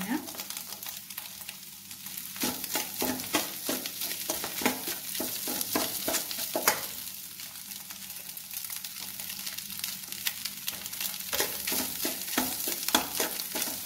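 Steel spoon scraping and clinking against a kadai as cooked rice is stirred into egg frying in oil, with a steady sizzle underneath. The scrapes come in busy bursts, a few seconds in and again near the end.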